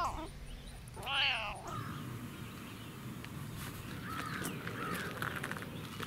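Black domestic cat meowing: the end of one meow at the start, then a second short meow that rises and falls in pitch about a second in.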